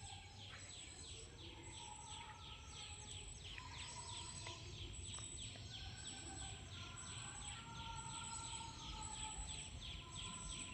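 Faint outdoor ambience: birds chirping in a fast, even series of short falling notes, about three or four a second, with a few longer whistled calls and a steady high thin tone, over a low rumble.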